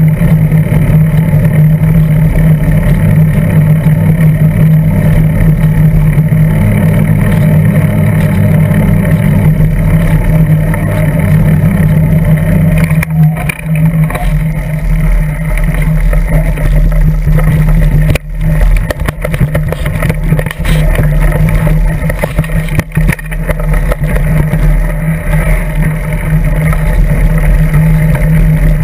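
Mountain bike in motion, heard through a camera clamped to its seat post: a loud, steady rumble of wind and tyre and frame vibration with a low hum, which thins out about 13 seconds in.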